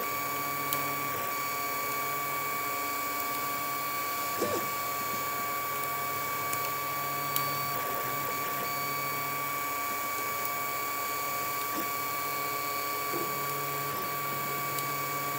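Fa)(a 3D open-hardware 3D printer printing, its stepper motors giving a steady high whine. Under it runs a lower hum that comes and goes every few seconds as the moves change, with a few short clicks.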